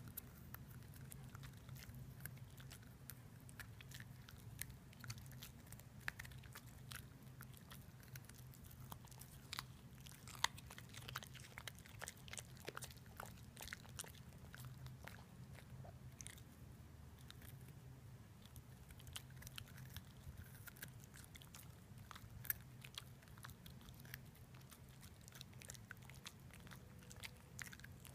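A puppy chewing a raw baby carrot: irregular sharp crunches and clicks of teeth biting into the carrot.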